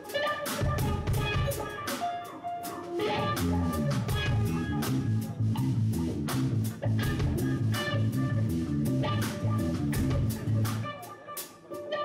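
Instrumental progressive rock from two guitars and a drum kit, with cymbal and drum strikes. From about three seconds in to near the end, a quick run of low notes moves back and forth under the drums.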